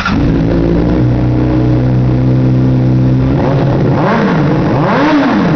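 2008 Honda CBR600RR inline-four engine with an aftermarket Hyperflow dual carbon exhaust, running at steady revs. It is then revved twice near the end, each rev rising and dropping back, the second going higher.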